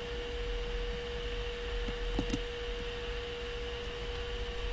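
Steady electrical whine from the recording chain: one constant mid-pitched tone over a low hum and hiss. A couple of faint soft clicks come about two seconds in.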